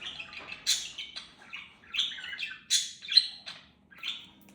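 Homemade slime being squeezed and pulled by hand, giving a quick irregular series of short sticky squelches and pops.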